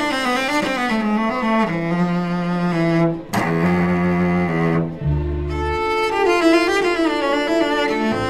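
Background music of bowed strings: low cello and bass notes under higher violin lines, playing long held notes, with a brief break about three seconds in.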